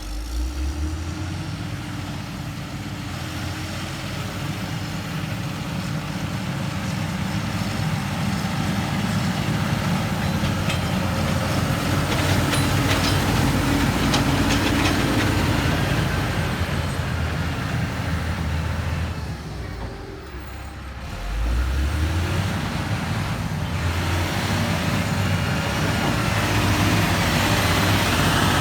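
Heavy diesel engine of construction machinery running steadily. It dips briefly about twenty seconds in, then picks up again.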